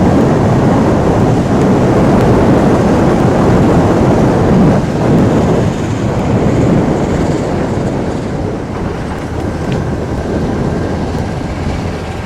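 Wind buffeting the microphone over a motorcycle engine running while riding on the road. The rumble is loud and eases slightly about halfway through.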